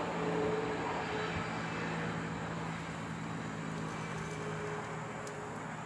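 Steady low rumble of distant motor noise, with a faint hum underneath.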